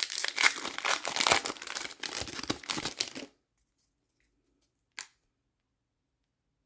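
Foil trading-card pack wrapper being torn open and crinkled in the hands, a dense crackle for about three seconds. A single short click follows about five seconds in.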